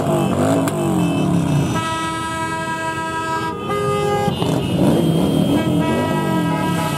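Several motorcycle engines revving up and down again and again, with horns honking over them: one long blast of about two seconds, a shorter one at a different pitch right after, and more toots near the end.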